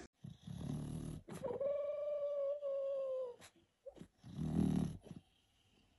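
A dog makes one long whine of about two seconds, holding its pitch and dropping at the end. Short, quieter noisy sounds come before and after it.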